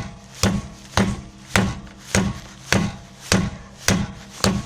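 A car wheel being struck over and over with a hand tool to test the suspension for a knock. There are about nine even blows, close to two a second, and each one is a sharp knock with a short low ring.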